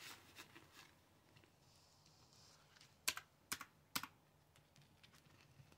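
Calculator buttons being pressed: a few faint taps, then three sharper key clicks about three to four seconds in.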